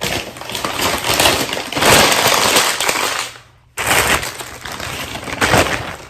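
Close, loud crackling and crunching as a bag of hot seafood boil (shrimp and snow crabs) is handled and opened. It breaks off abruptly for a moment just past halfway, then resumes.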